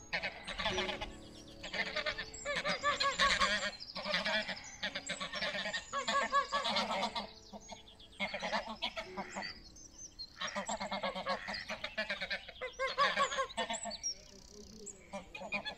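Greylag geese honking, a run of repeated calls with short pauses between them.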